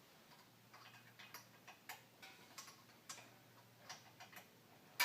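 Small irregular metallic clicks as a cotter pin is worked against the eye hole of a portable generator's steel wheel axle rod, ending in one sharp, loud metallic clank with a short ring.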